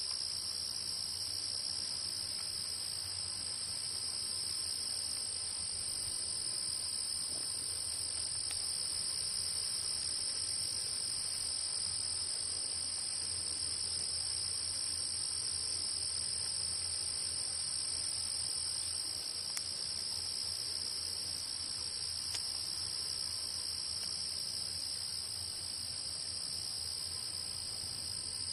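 Steady chorus of singing field insects: two continuous high-pitched trills layered together without a break.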